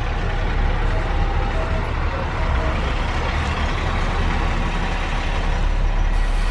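School bus driving past with its diesel engine running and tyre noise, a steady low rumble that swells slightly.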